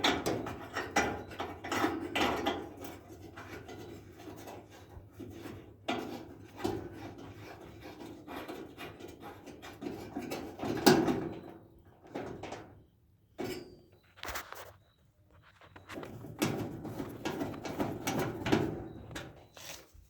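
Irregular rubbing and scraping as the inside of a dryer cabinet is cleaned out, with a few sharp knocks, the loudest about halfway through.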